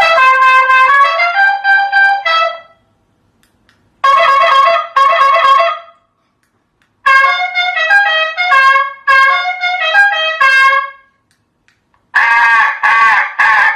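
Programmable aftermarket car horn playing its custom sounds: short trumpet-like tunes of stepping notes, one after another with brief silences between. The last sound is a denser run of quick repeated honks.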